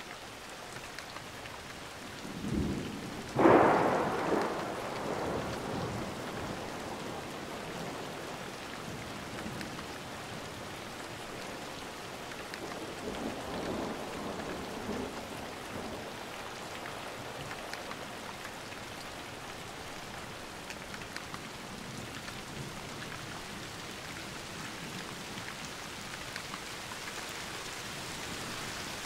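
Steady rain falling, with a sharp thunderclap about three and a half seconds in that rolls off over the next few seconds, and a fainter roll of thunder in the middle.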